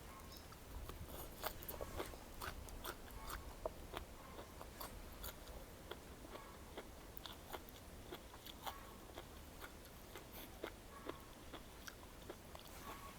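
A person eating close to the microphone: quiet chewing and biting with many small irregular crunches and wet clicks, more frequent in the first few seconds. The food is a spicy seafood papaya salad with mussels and squid.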